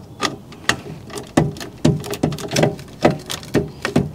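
Hand socket ratchet working a nut loose under a motorcycle's rear fender: short clicking strokes of the ratchet, about two a second.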